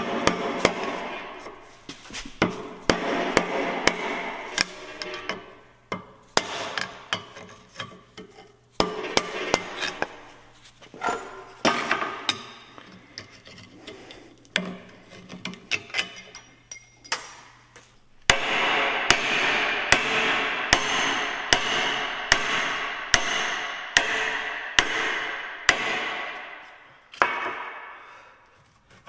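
Hammer blows on the rusted U-joint and yoke of a Dodge Ram front axle half shaft held in a vise, knocking out a worn-out U-joint; each strike rings off the steel. The blows come in irregular clusters at first, then settle into a steady run of about one and a half a second for the last third.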